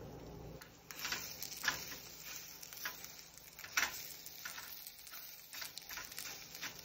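Scrambled eggs frying in a pan on an electric stove burner: faint sizzling with irregular small crackles and pops.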